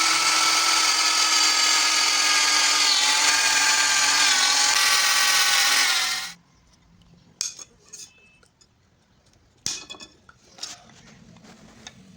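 Electric drill running with a steady whine that dips slightly in pitch under load, then stops about six seconds in. A few light knocks and clinks follow as tools and parts are handled.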